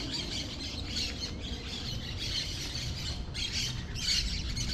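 Birds squawking and chattering in the trees, a busy overlapping chorus of shrill calls.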